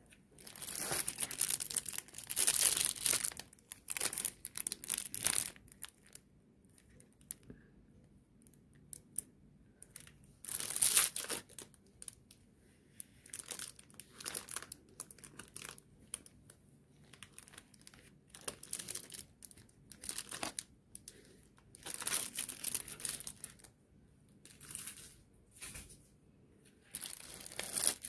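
Clear plastic packaging crinkling and rustling in irregular bursts as gloved hands unwrap and handle makeup brushes, with the loudest stretches in the first few seconds and again about eleven seconds in.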